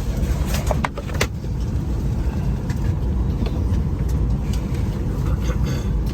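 Steady low rumble inside an Airbus A321neo airliner cabin, with a few sharp clicks about a second in.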